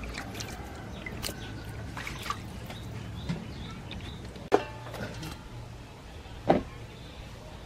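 Raw, wet chicken wings being handled in a bamboo basket: scattered soft clicks and drips, with two sharp knocks about two seconds apart past the middle.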